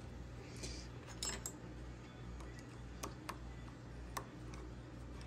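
A small steel set screw being threaded by hand into a rifle action: a brief scrape, then a handful of faint, scattered metallic clicks and ticks as the screw and fingers touch the metal.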